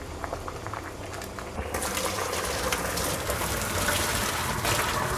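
Hot water and blanched spinach poured from a pot into a plastic colander in a stainless steel sink, the water gushing and splashing. The pour starts a little under two seconds in, after a few light clicks.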